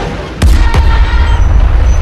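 Synthesized heavy mech footstep sound effect: two sharp impacts less than half a second apart, followed by a deep, booming rumble.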